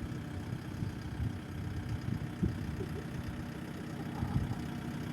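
An engine idling steadily, low-pitched and slightly uneven.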